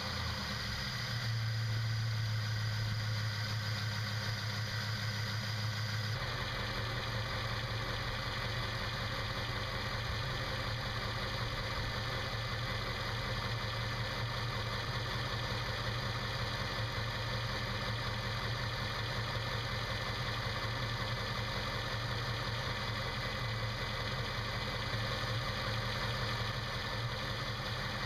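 Jeep Grand Cherokee's 4.7-litre V8 idling steadily just after being started, its sound shifting lower and rougher about six seconds in. It is running with the coolant bleed plug out to work air out of the cooling system.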